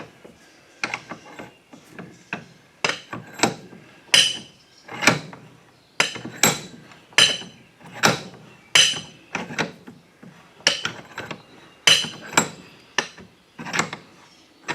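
Repeated hammer blows on a lawn mower wheel and tire, about twenty sharp strikes at one to two a second, each with a short metallic ring, as the tire is worked off the rusted rim.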